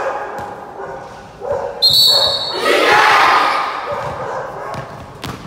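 Basketball bouncing on a gym floor, several sharp bounces, with players yelling, loudest about three seconds in. A brief, steady, high-pitched squeal sounds about two seconds in.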